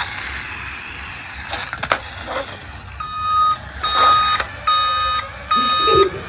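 Electronic beeping: a steady pitched beep that starts about halfway through and repeats about five times, a little under a second apart, after a few faint clicks.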